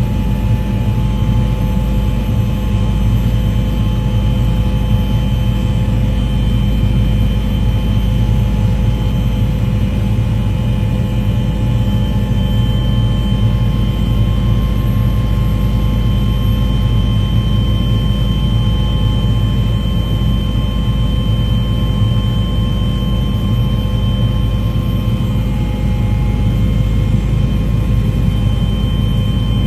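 Aircraft engine running steadily, a loud, even drone with a deep rumble and a few held tones.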